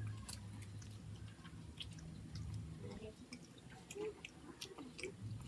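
Children eating: soft chewing and scattered small clicks of plastic forks against plates, over a steady low hum.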